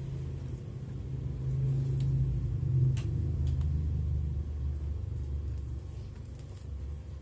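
A low rumble that builds about a second and a half in and fades toward the end, with one sharp click about three seconds in.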